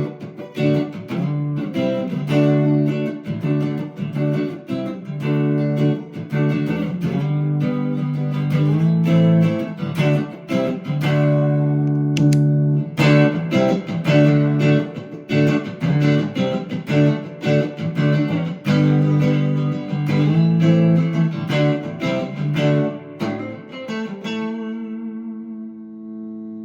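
Electric guitar played through an amp on a clean setting, with the overdrive pedal switched off: picked notes and chords, the last chord left ringing and fading away over the final couple of seconds.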